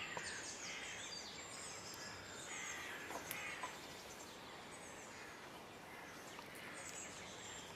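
Birds chirping in quick, short phrases over a steady outdoor hiss.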